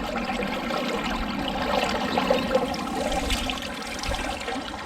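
Shallow river water sloshing and splashing as a person wades ankle-deep and reaches into it, with a few irregular louder splashes over a steady wash of water.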